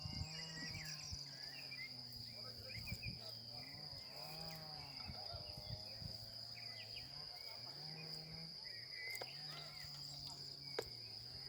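Insects trilling steadily at one high pitch in the forest, with faint voices in the background and a low hum underneath.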